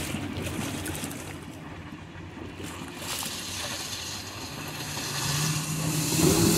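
Yamaha outboard on a Wildcat 460 ZCR rigid inflatable boat running at speed, its hull throwing spray. The engine is faint at first and grows louder over the last couple of seconds as the boat comes close.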